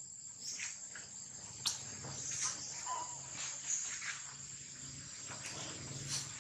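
Steady high-pitched insect drone, like crickets or cicadas, with scattered faint clicks and a short faint squeak about three seconds in.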